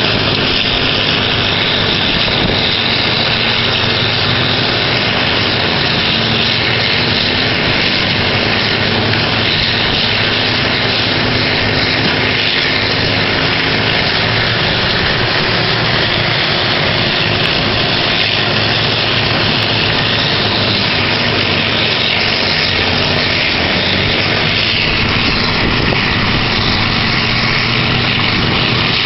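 Horizontal wood grinder and excavator running together: a loud, steady machine drone with a constant rushing grinding noise over it, unbroken throughout.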